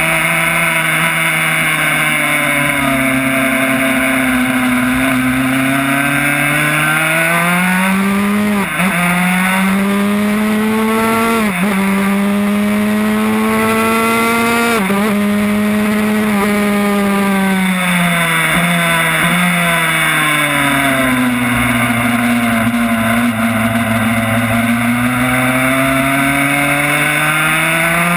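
Yamaha YZ85 single-cylinder two-stroke engine in a 1994 Honda RS125 road-racing motorcycle, heard from on board at racing revs. The engine note climbs through three quick upshifts, each a brief dip in pitch, then falls away as the bike slows and climbs again near the end. Wind rush is heard behind it.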